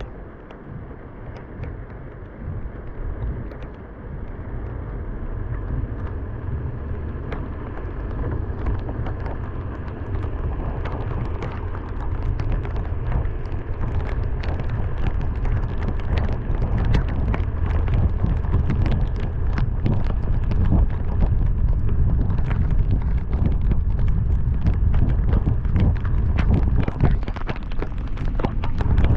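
Car driving through heavy rain: a steady low rumble of road and wind, with sharp raindrop hits close to the microphone. The hits grow denser and the whole sound grows louder from about ten seconds in.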